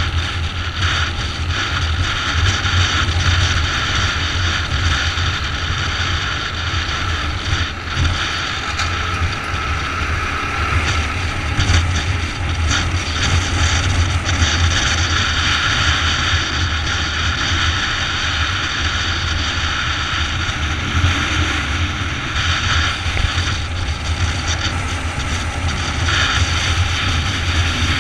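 Motorcycle cruising at steady speed: engine running steadily, with wind buffeting the microphone.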